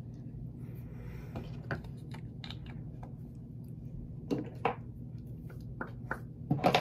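Small clicks and taps of plastic makeup containers being handled and set down, a cluster of louder ones a little past four seconds in and again near the end, over a steady low hum.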